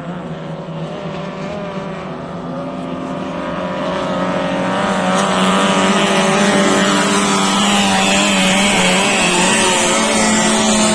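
Racing boat engine running at high speed, growing louder over the first half as it approaches, then holding a loud, steady drone.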